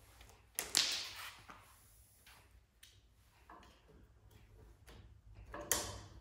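Handling noises as battery charger leads and clamps are hooked up: a sharp swish a little under a second in and another near the end, with a few soft clicks between.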